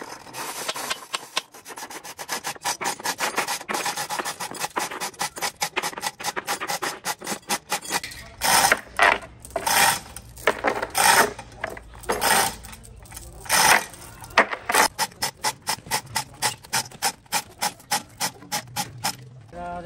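Rapid, repeated scraping strokes of a hand tool, several a second. About eight seconds in they turn louder and more widely spaced.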